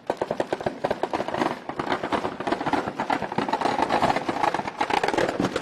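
Firecrackers going off in a dense, rapid crackle of overlapping pops, like a long string of crackers.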